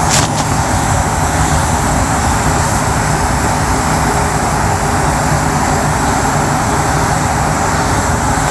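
Constant loud rush of air heard from inside a painter's air-fed helmet, with a short sharp hiss about a quarter second in.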